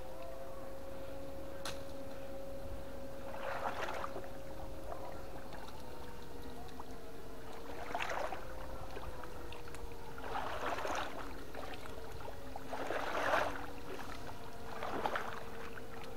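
Steady, slightly wavering whine of a battery-powered electric fishing stunner (PDC 8 FET inverter) running, with water splashing five times at uneven intervals.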